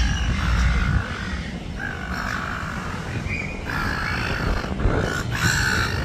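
Silver gulls squawking: several harsh calls, the two loudest and longest in the second half. A low rumble runs under them, loudest in the first second.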